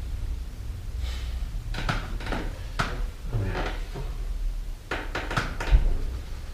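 Scattered light knocks and clicks of small objects moved about on a wooden desk, in two short clusters, over a low steady rumble.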